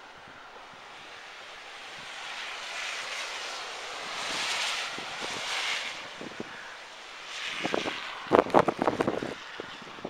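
Vehicle tyres hissing through slush on a snowy road, swelling and fading as it passes. Near the end, loud irregular gusts of wind buffet the microphone.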